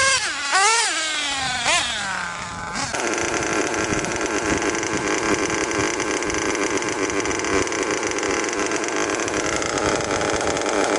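Small nitro RC engine, a JPX 28 with an MSR 1005 tuned pipe in an MBX5T truck, revving up and down in quick rising and falling swells. About three seconds in it gives way to a close, steady run of the engine on the stationary truck.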